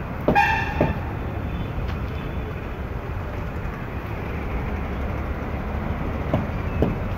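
Steady low rumble of a large diesel coach engine idling. About half a second in there is a short high-pitched tone, and near the end a couple of knocks.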